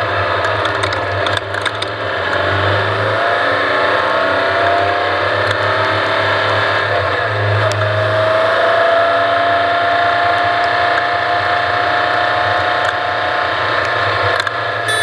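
Off-road race vehicle driving, its engine note slowly rising and falling under a constant rattle of the chassis over rough ground, with sharp clicks and knocks about a second in.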